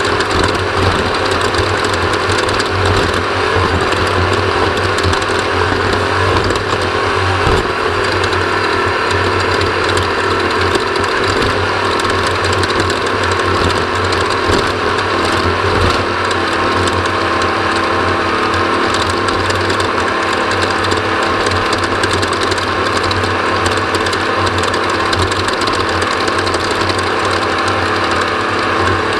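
Off-road race vehicle's engine running hard at a fairly steady pitch, loud and continuous, with a rapid mechanical clatter over it.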